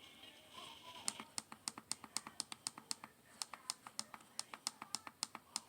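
Rapid, even clicking from the tuning control of a Prunus J-401 radio being stepped through the FM band, about four clicks a second, with a brief pause about halfway through.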